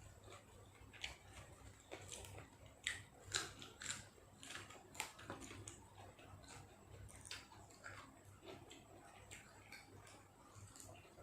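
A person chewing food close to the microphone: irregular soft clicks and small crunches of mouth sounds.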